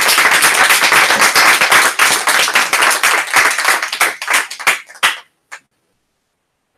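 Audience applauding: many hands clapping densely, thinning to a few last scattered claps about five seconds in, then stopping.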